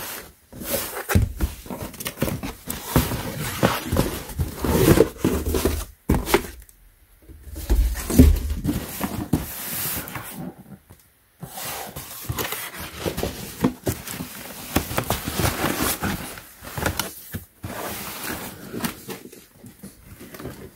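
Cardboard shoe boxes being handled: irregular rustling and scraping of cardboard sliding against cardboard, with light knocks, and two brief lulls about seven and eleven seconds in.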